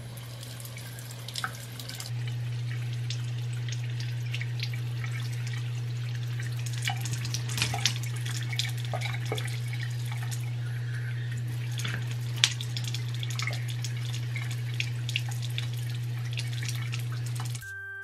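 Water running from a bathroom sink faucet into the basin, with small splashes and drips, over a steady low hum that grows louder about two seconds in. It all stops just before the end.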